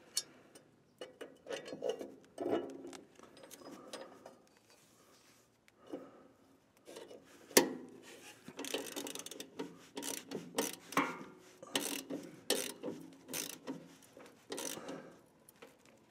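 Ratchet wrench clicking as a lawn mower's blade bolt is fitted and tightened, among knocks of the blade being handled. A single sharp knock, the loudest sound, comes about seven and a half seconds in; after it the ratchet clicks in quick runs.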